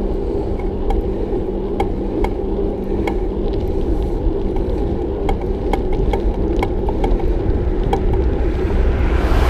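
Bicycle on the move, with a steady rumble of tyres and wind and a light click repeating about twice a second, in time with the pedal strokes. A rushing noise swells near the end.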